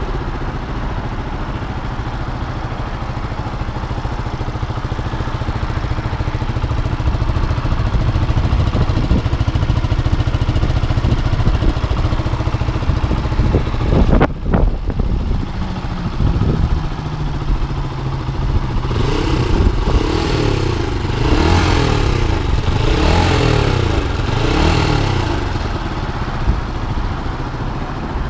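QJ Motor SRV 125 motorcycle engine idling at standstill, then blipped with the throttle. There is a short sudden rev about halfway through, then about five quick revs rising and falling in a row, and it settles back to idle.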